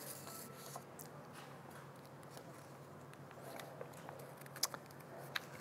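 Quiet room tone with a steady low hum, broken by a few light clicks and taps from hands working at a lectern, the sharpest a little before the end.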